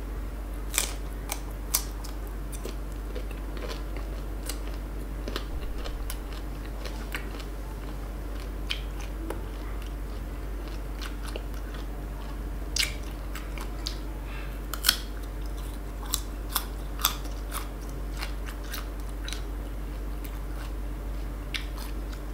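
Close-up crunchy biting and chewing of crisp unripe green fruit: a scatter of sharp crunches, a few much louder than the rest, with softer chewing between them.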